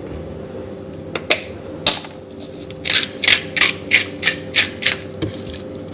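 Rock salt grinder being twisted: a couple of clicks, then from about halfway in a rhythmic gritty grinding of about three strokes a second as salt crystals are cracked.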